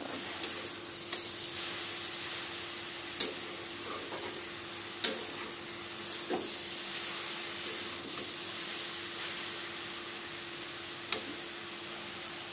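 Grated carrots sizzling steadily as they fry in ghee in a pan, stirred with a spatula that knocks sharply against the pan several times, loudest about three, five and eleven seconds in.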